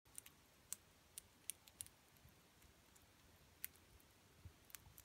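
Sugar glider chewing a superworm: faint, sharp crunching clicks at irregular intervals, about seven in five seconds.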